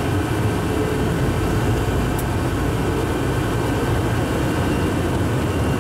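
Hartsfield-Jackson Plane Train, a rubber-tyred automated people mover, running at speed through its concrete tunnel, heard from inside the car: a steady low rumble and running noise.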